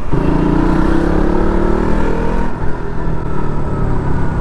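KTM Duke motorcycle engine accelerating under way, its pitch rising steadily for about two and a half seconds, then levelling off.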